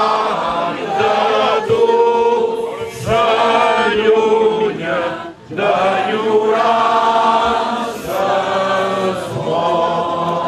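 A group of men and women singing together from song sheets, one man's voice amplified through a handheld microphone, with a short break in the singing about five seconds in.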